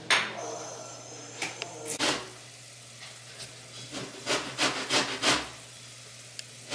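An orange being zested on a metal box grater: short rasping strokes, one about two seconds in and then a quick run of about three a second near the end. A sharp click sounds at the very start.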